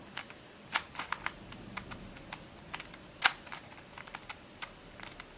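Plastic pieces of a Witeden 2x2x3 Camouflage II twisty puzzle clicking and clacking as its layers are turned by hand, pushed through misaligned turns to test corner cutting. The clicks come irregularly, the sharpest about a second in and again a little past three seconds.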